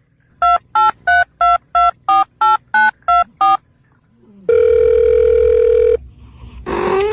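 Ten touch-tone telephone keypad beeps, about three a second, then one long steady tone lasting about a second and a half. Near the end a cat's meow begins, rising in pitch.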